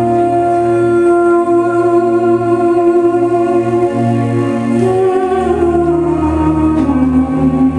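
Slow instrumental dance music of long held, organ-like tones over a sustained bass note; the bass drops lower about five seconds in and the harmony shifts soon after.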